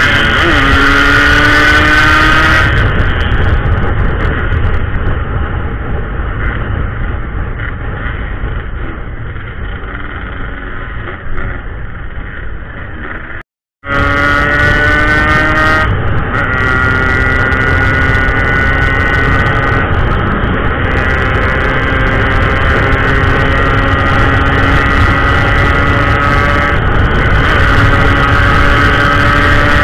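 Yamaha RX-King's two-stroke single-cylinder engine pulling hard on the road, heard from the saddle with wind rumbling on the microphone. Its pitch climbs, eases off for a stretch, then climbs again in steps, dropping briefly at each gear change, with a short cut to silence about halfway.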